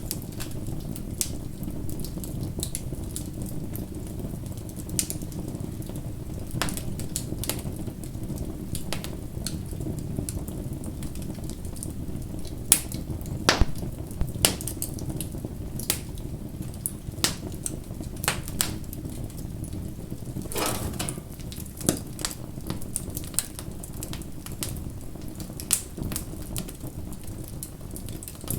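Wood bonfire burning: irregular sharp crackles and pops over a steady low rumble of the flames, with a half-second burst of noise about twenty seconds in.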